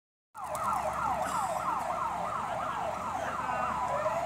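Electronic vehicle siren on a fast yelp, its tone sweeping up and down about three times a second. Just before the end a second siren tone begins a slow rise.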